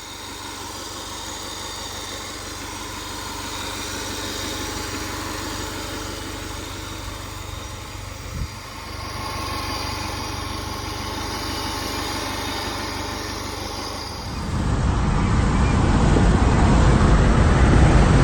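The 2008 Subaru Legacy's 2.5-litre flat-four engine running steadily after the repair. About 14 seconds in, a louder rushing noise takes over.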